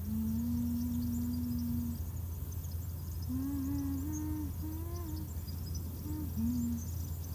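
Someone humming a slow tune: one long held note, then a short pause and a few gliding phrases that rise and fall. A low steady drone runs underneath throughout, with faint scattered crackle.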